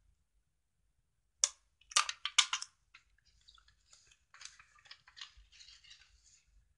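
Hands working a folded paper box: a few sharp clicks about two seconds in, then soft, irregular paper rustling as the sides are pressed and turned.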